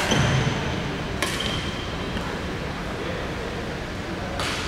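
Badminton rackets striking a shuttlecock in a rally: sharp hits at the start and about a second later, each with a brief high ring, then another hit near the end, echoing in a large sports hall.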